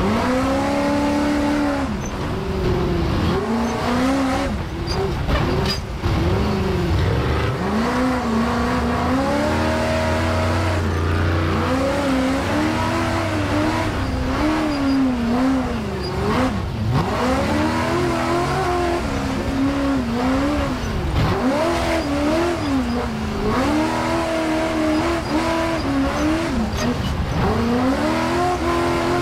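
Ultra4 off-road race buggy's engine heard from inside the cockpit at racing speed, revving up and falling back again and again as the throttle is worked. Occasional knocks come through the chassis.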